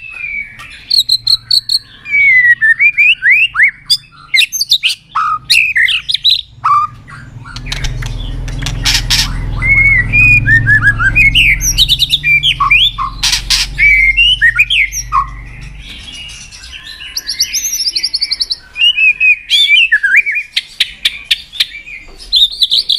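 White-rumped shama singing a fast, varied song of whistled phrases, rising and falling notes and sharp clicks. A low steady rumble sits underneath through the middle of the stretch.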